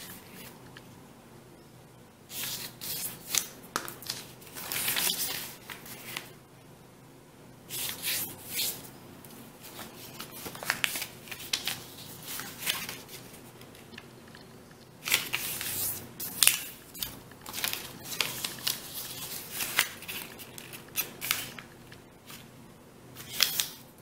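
A sheet of origami paper being folded and creased by hand. There are bursts of rustling and sharp swipes as the fingers press the folds flat, with short quieter gaps between them.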